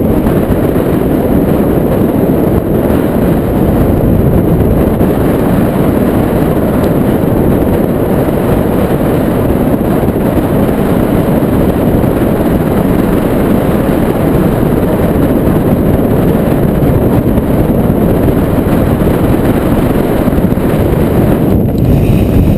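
Strong dust-storm wind buffeting the microphone: a loud, steady, low rumble.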